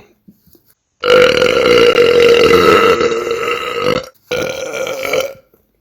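A man belching loudly: one long belch held at a steady pitch for about three seconds, then a shorter second belch.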